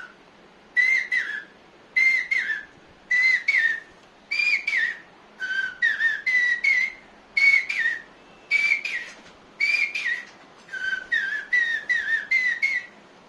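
A man imitating a bird's call with his mouth: short, high whistled phrases of two or three quick warbling notes, repeated about once a second.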